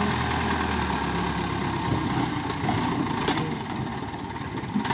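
Backhoe engine idling steadily, with two short knocks, about three seconds in and near the end.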